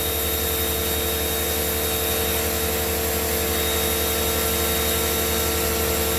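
Electric pressure washer running and spraying water through the wand, its motor and pump giving a steady hum over the hiss of the spray.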